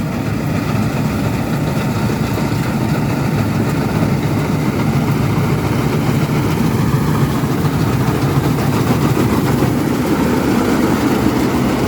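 Combine harvester working a rice paddy: its diesel engine and threshing machinery running steadily, with a thick low drone and no breaks.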